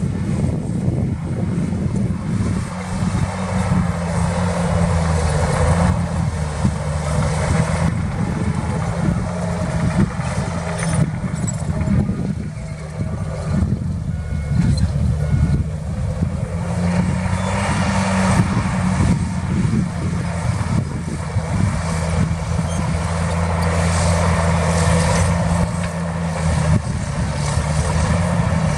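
Heavy diesel earthmoving machinery running at work: a steady deep engine note that shifts in pitch several times as the load changes.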